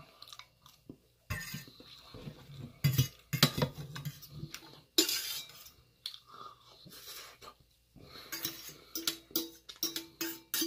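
Metal fork scraping and clinking against a round metal pan while the last food is scooped out, with a sharp clank about halfway through. In the last few seconds the pan rings faintly under the scraping.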